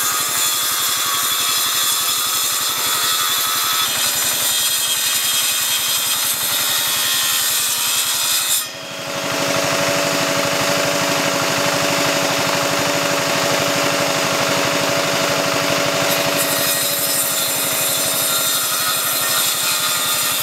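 A homemade chain-driven table saw's circular blade rips lengthwise through a wooden plank, a loud, steady cutting noise. About nine seconds in it dips briefly, then carries on with a steady hum from the running machine underneath.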